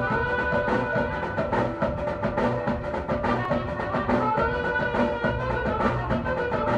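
Conjunto band playing a huapango, with drums keeping a steady beat under held melodic notes.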